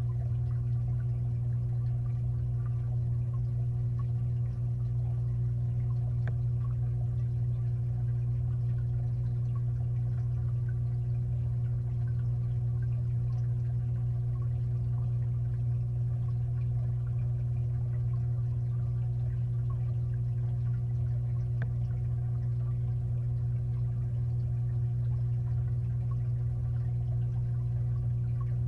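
Steady low hum of a 55-gallon aquarium's filter running, with a light wash of moving water and a few faint ticks.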